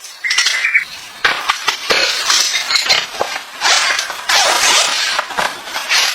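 Rustling, knocking and light clinking of objects being handled.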